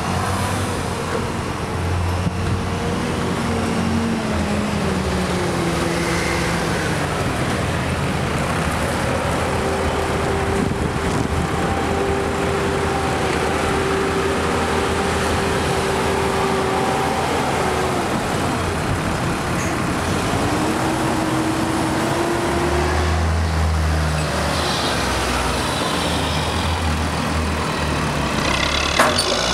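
John Deere 7710 tractors' six-cylinder diesel engines working as they push and pack chopped maize silage, the engine note rising and falling with the load. A deeper, heavier engine sound builds in the last few seconds, with a single knock near the end.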